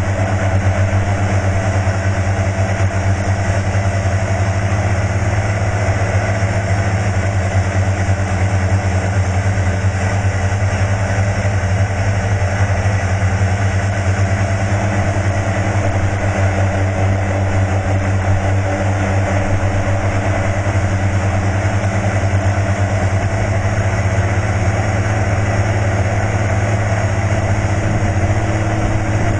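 Steady, unbroken hum of a single-rotor T580 model helicopter's motor and rotor in flight, picked up close by its onboard FPV camera and holding one pitch throughout.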